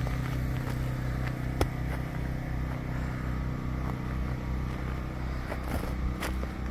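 A steady low engine-like hum, with one sharp click about a second and a half in and a few more clicks near the end.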